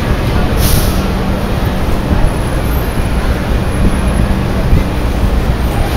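Street traffic: a steady rumble of passing and idling vehicles, with a short sharp hiss near the start.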